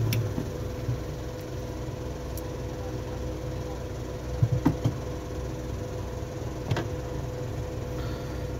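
Light clicks and taps of tools being handled on an electronics repair bench over a steady electrical hum; a heavier low hum cuts off right at the start, and a small cluster of taps comes about halfway through, with another near the end.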